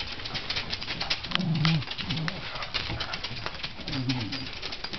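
Small dogs' claws clicking rapidly on a tiled floor as they move around, with a few short low vocal sounds in between.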